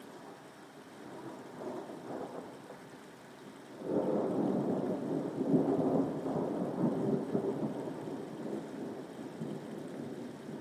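Steady rain with a thunderclap that breaks suddenly about four seconds in, rolls with a crackling rumble, and slowly fades.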